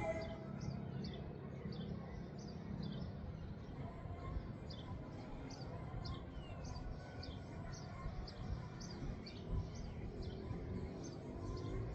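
Wind rumbling on the microphone at night, with a steady series of short, high, falling chirps repeating about twice a second from a small animal calling.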